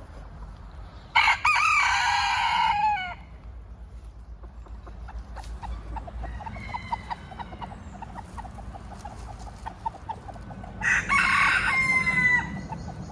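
A rooster crows twice, once about a second in and again near the end, each crow about two seconds long and dropping in pitch at the end, with hens clucking softly in between.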